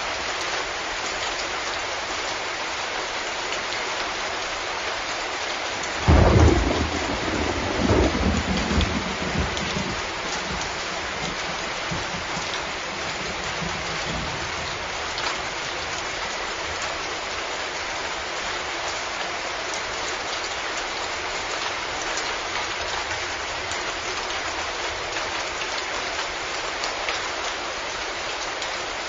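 Steady rain. About six seconds in a clap of thunder breaks out, swells again a couple of seconds later and rumbles away over the next few seconds.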